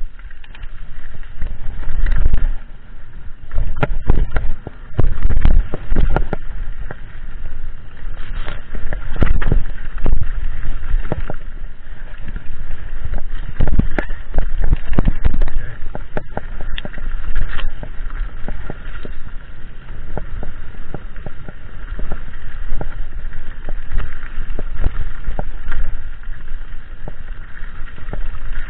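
Mountain bike riding fast down a rough dirt trail: constant clattering and rattling of the bike over the bumpy ground, with frequent sharp knocks from hard jolts over a low rumble.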